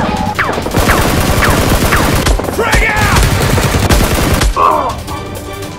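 Rapid automatic gunfire, shot after shot in quick succession with a few short falling whistles among them. It stops about four and a half seconds in.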